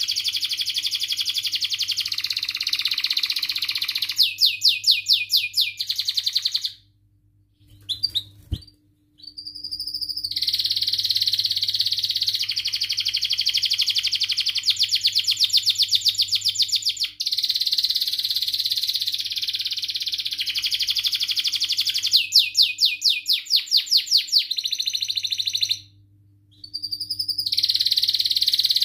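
Domestic canary singing a long, continuous song of chirps and fast rolling trills. It breaks off twice, for about two seconds from around seven seconds in and again briefly near the end. A single brief knock falls in the first gap.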